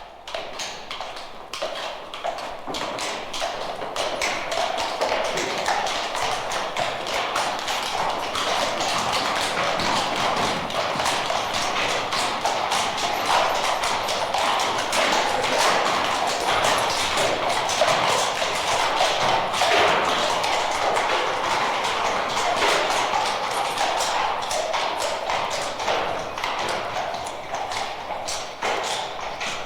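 A dense, continuous clatter of many rapid taps and knocks over a noisy rush, building over the first few seconds and then holding steady, played from a sound-effects record on vinyl.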